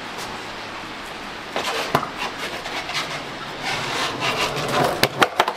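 Skateboard wheels rolling and scraping on concrete, then several sharp clacks of the wooden deck knocking near the end.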